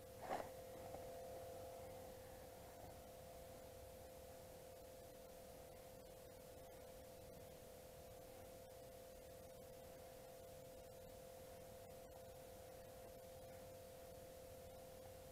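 Faint steady electronic hum on a single pitch, with a short knock about half a second in.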